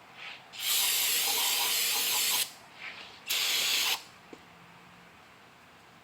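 Pressurised spray hissing in two bursts, a long one of about two seconds and then a shorter one, with small clicks around them.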